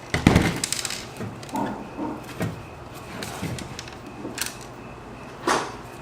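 Parts of a Dell XPS L702X laptop clicking and knocking as it is pried and handled during disassembly. A quick rattle of clicks comes right at the start, then a few scattered knocks, and a louder knock near the end.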